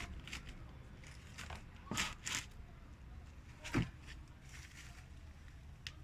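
Plastic toy car parts being handled: a few scattered clicks and short rustles, the loudest about two seconds and about four seconds in, over a steady low hum.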